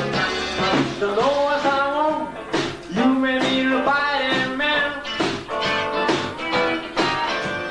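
Live rock band playing: electric guitars, bass and drums, with a melody line bending in pitch over a steady beat.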